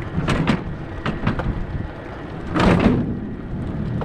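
Wind buffeting the microphone of a bicycle moving at speed, a steady low rumble with short rushes of noise and a louder gust about two-thirds of the way in.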